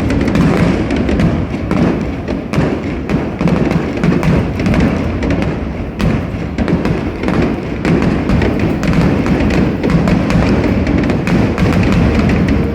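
Aerial fireworks bursting in rapid succession: a dense, loud barrage of thuds with sharp cracks packed closely together throughout.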